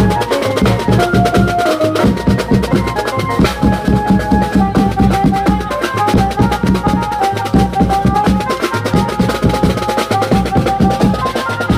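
A Koli-style banjo band playing live: fast, dense drumming on large bass drums and side drums with cymbal clashes, under a melody that moves in short held notes.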